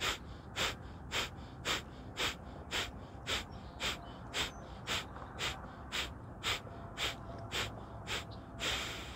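Kapalbhati fire breath through the left nostril, the right one held shut: short, forceful nasal exhalations at an even pace of about two a second, with a longer breath near the end.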